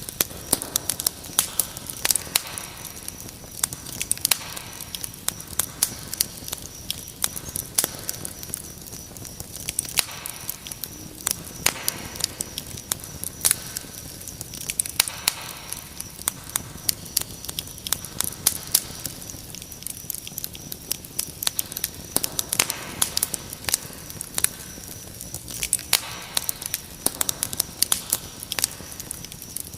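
Wood fire crackling and popping in a fireplace, with sharp irregular snaps throughout, over a steady high chirring of crickets.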